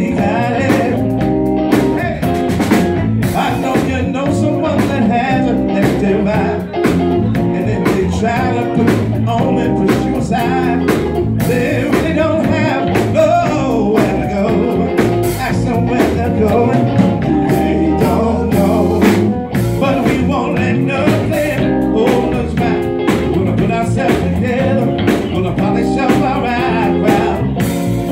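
Live band playing: electric bass and a drum kit keeping a steady beat, with a man singing into a microphone over them.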